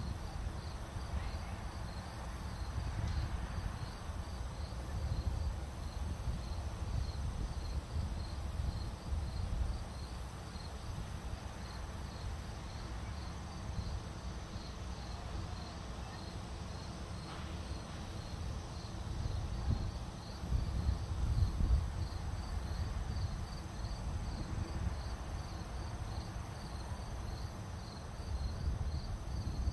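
Crickets chirping steadily outdoors, a regular high pulsing about three chirps a second, over a low uneven rumble.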